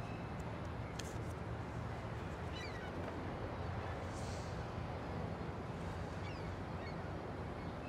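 Outdoor ambience: a steady low rumble with a few short, falling bird calls scattered through it.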